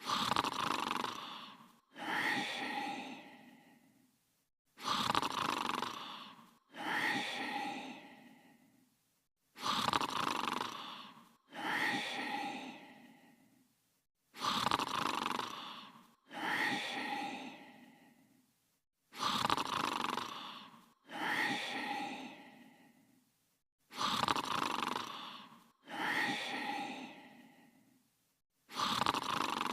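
Cartoon snoring: a two-part snore, one long breath straight into another, each about two seconds, starting loud and fading. The pair repeats steadily about every five seconds, six times over.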